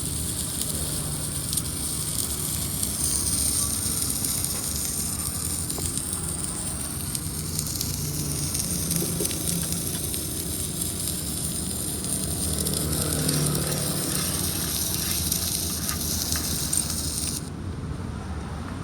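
Automatic submerged arc welder running: a steady crackling hiss from the arc under its flux, over a lower machine hum. The hiss cuts off suddenly near the end, leaving the hum.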